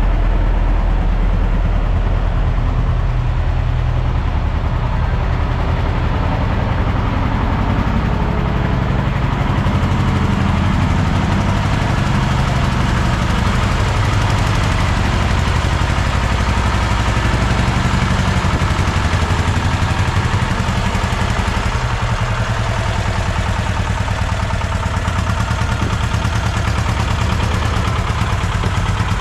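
An engine running steadily at an even, low pitch, typical of the equipment used to break out and dig up a concrete slab.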